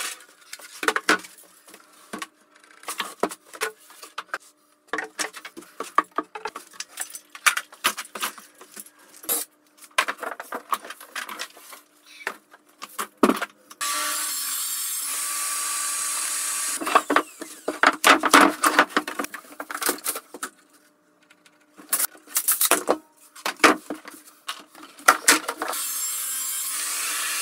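Wooden panels and boards knocked and clattering as they are moved and set down. Then a plunge-cut track saw with dust extraction runs steadily through sheet board, stopping abruptly after a couple of seconds and starting again near the end.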